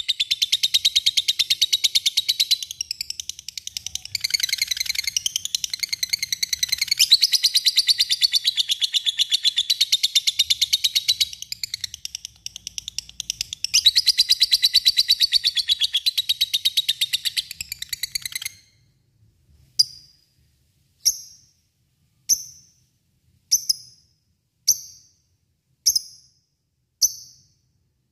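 Lovebird ngekek: a long, very fast chattering trill with a few brief dips. About two-thirds of the way in it breaks off, and single sharp chirps follow, a little over a second apart.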